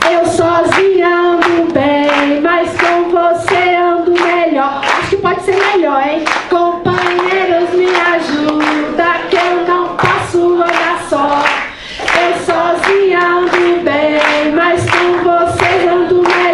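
A group of women singing the refrain of a song together, clapping their hands on a steady beat about twice a second.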